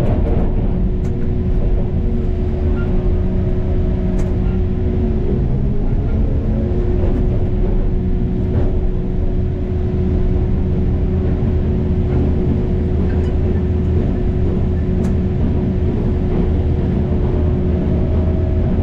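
Heavy construction machine's engine running steadily under a low rumble, with a steady whine held throughout and a few faint clicks.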